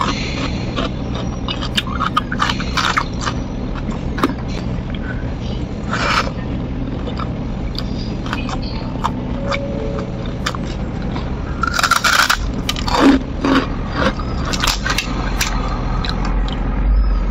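Close-up eating sounds: chewing with wet mouth clicks and crisp crunches, starting with a bite of raw cucumber. Near the end a crispy fried cracker is snapped by hand.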